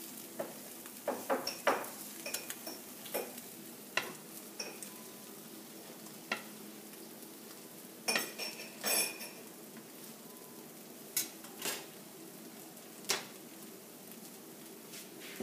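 Omelet sizzling in a nonstick frying pan while a slotted metal spatula scrapes and taps against the pan in irregular sharp knocks, pushing the egg and fillings together.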